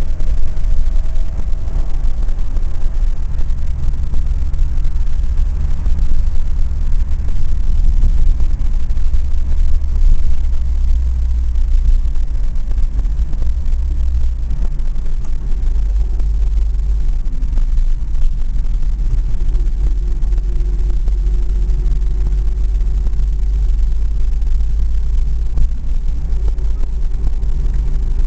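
LADA 2104 driving, heard from inside the cabin: a steady low engine and road rumble, with a faint whine that slowly rises in pitch through the second half.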